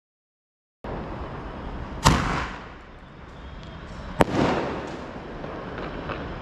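Sky-shot firework shells going off: two sharp bangs about two seconds apart, each trailing off in a fading rumble. The sound starts about a second in.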